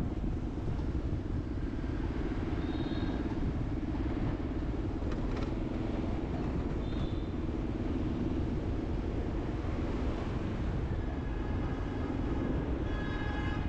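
A vehicle travelling along the road: a steady low rumble of engine, road and wind noise, with a faint pitched tone near the end.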